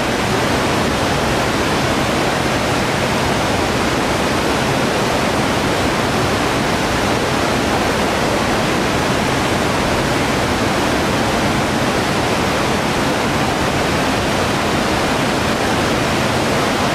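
Steady, loud rushing of the Nile River's flowing water, an even hiss that does not rise or fall.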